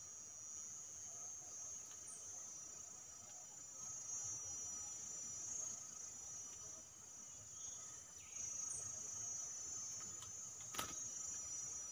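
Insects trilling steadily and high-pitched in the background, faint, with a couple of tiny high chirps, and a single sharp click near the end.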